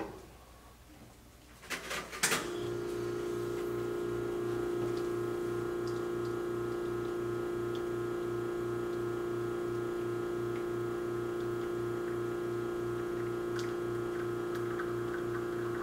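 A portafilter clicks and knocks into an espresso machine's group head, then about two seconds in the machine's pump starts and runs with a steady hum and a regular pulsing as an espresso shot pulls through a bottomless portafilter.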